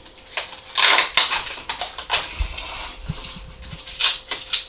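Plastic drip tape and polyethylene connecting tubing being handled and worked together by hand, the tubing twisted into a punched hole in the tape: a series of short rustling, scraping plastic sounds, loudest about a second in and again near the end.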